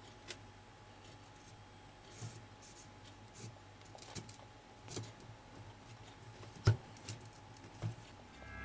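Faint, scattered clicks and taps of small RC car parts being handled while a new hinge pin is fitted to the suspension, the sharpest click about two-thirds of the way through.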